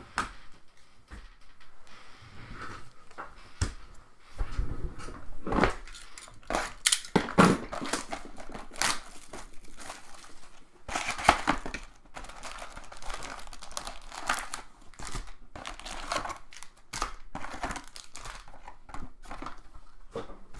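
Plastic trading-card packaging crinkling and tearing open in irregular, crackly bursts.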